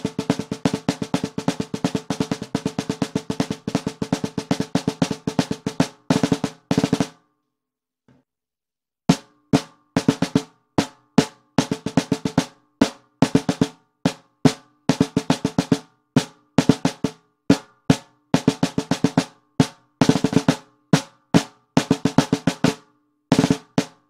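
Baldassare M1455LR 14 x 5.5 inch stainless-steel marching snare drum played with sticks, close-miked. It plays a continuous roll for about six seconds and two short rolls, then stops for about two seconds. It then plays a march-style pattern of single strokes broken up by short rolls.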